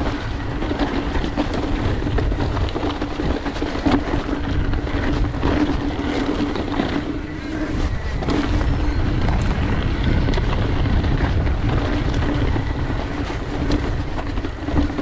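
Mountain bike riding a dirt singletrack: tyres rolling and the bike rattling and knocking over bumps, with wind on the microphone. A steady buzzing hum runs under it and breaks off briefly about eight seconds in.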